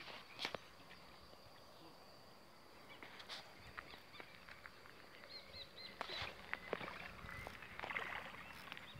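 Faint outdoor ambience: a steady high whine, a few short high chirps about midway, and scattered clicks and rustles that grow busier over the last three seconds.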